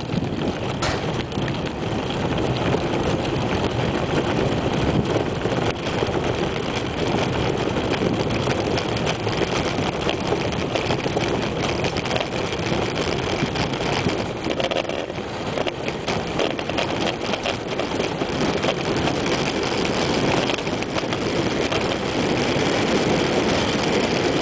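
Soapbox gravity racer rolling fast downhill on rough tarmac: a steady rumble and rattle from its wheels and body, with wind on the microphone, a little louder near the end.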